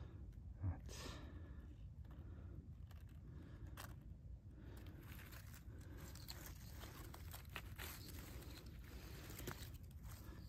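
Faint rustling and crackling of dry pine needles and twigs being handled and stepped on, with scattered soft clicks and one dull thump about a second in.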